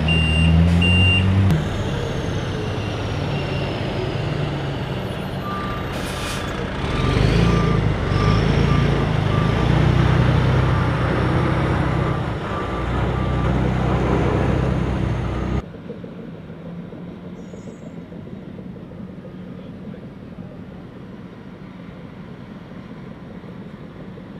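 Heavy diesel construction equipment running and working, with backup alarms beeping: a higher-pitched alarm in the first second, then a lower-pitched one beeping from about five to thirteen seconds in. About fifteen seconds in the machinery cuts off abruptly, leaving a quieter steady outdoor noise.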